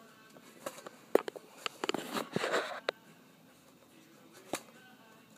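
Scattered sharp taps and scuffs with a short burst of rustling, bunched about one to three seconds in, and one more tap near the end: a puppy scrambling about on bedding while playing.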